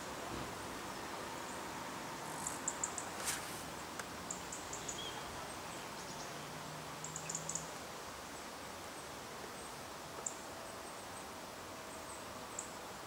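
Outdoor ambience with small birds chirping: short runs of three or four quick high notes, a few times, over a steady faint background hiss.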